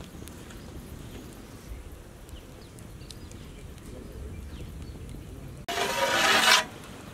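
A large aluminium cooking-pot lid is lifted off the pot, giving a sudden short rush of metal scraping on the rim, under a second long, near the end. Before it there is only a faint low rumble.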